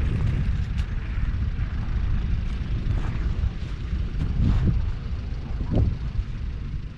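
Kubota M5-102 tractor's 3.8-litre four-cylinder diesel engine running with a steady low rumble, swelling briefly a couple of times in the second half.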